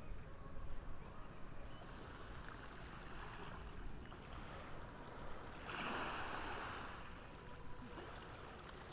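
Ocean waves washing in and receding, with one wave surging in louder about six seconds in.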